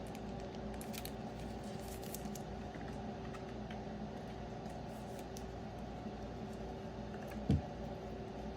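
Trading cards being handled: a few faint clicks and rustles in the first couple of seconds, then one dull thump a little before the end, over a steady low hum.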